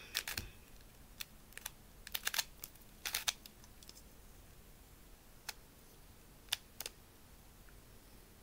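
Rubik's Color Block puzzle cube (a 3x3 with mirror-cube shapes) being turned by hand: scattered plastic clicks in short irregular bursts with pauses between, from a cube that turns stiffly.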